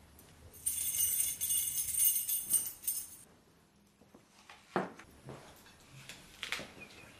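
A bunch of keys jingling in a hand for about two and a half seconds, a bright metallic shimmer, followed by a few faint knocks.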